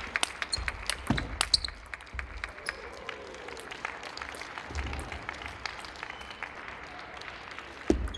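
Sharp clicks of a celluloid table tennis ball striking paddles and table as a rally ends, then light, scattered clapping from a sparse crowd in a large hall. Another sharp ball strike comes near the end as play restarts.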